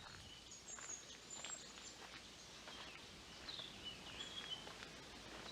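Faint songbird chirps and short high trills over a quiet outdoor background, with a few soft rustles or footsteps.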